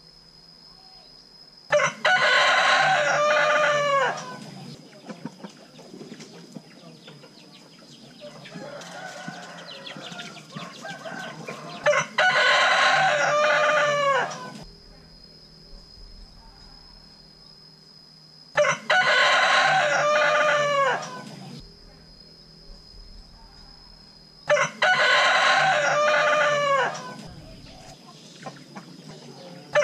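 Rooster crowing four times, each crow about two and a half seconds long and ending on a falling note, with quiet gaps of several seconds between them. A fainter call comes in the longest gap.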